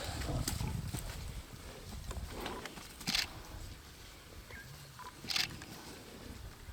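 Lions growling low, with two short, sharp snarls about three and five seconds in, as they squabble while feeding on a buffalo carcass.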